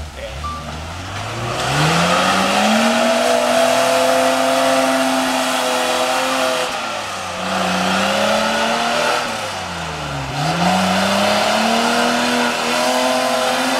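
Modified 4WD ute's engine revving hard under load as it climbs a steep muddy creek bank. The revs rise over the first two seconds, hold high, dip twice in the middle and climb again.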